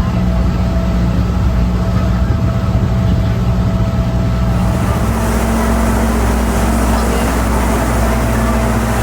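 Passenger boat's engine running steadily under way. About five seconds in the engine note steps up and a rushing noise grows louder.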